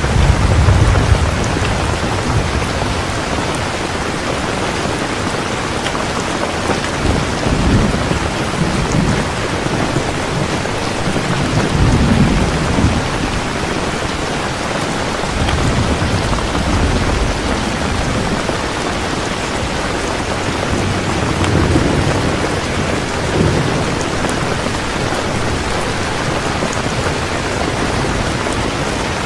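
Heavy rain falling steadily, with low thunder rumbling again and again every few seconds, loudest near the start and about twelve seconds in.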